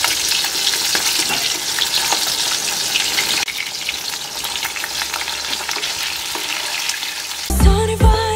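Pieces of fish sizzling and crackling in hot oil in a kadai, with a spatula moving them in the pan partway through. Near the end the frying gives way to a pop song with a beat.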